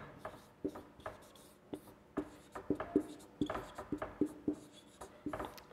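Marker pen writing on a whiteboard: a quiet, irregular string of short scratches and taps as the letters are drawn.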